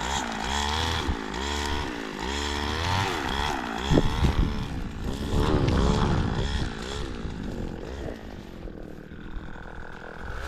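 Small petrol engine of a power tool, revving up and dropping back over and over, about once a second, and fading lower in the last couple of seconds.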